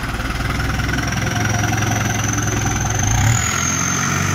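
Modified Fiat tractor's turbocharged four-cylinder diesel engine running steadily, with a rapid even beat of firing pulses and a thin high whistle over it that rises slightly about three seconds in.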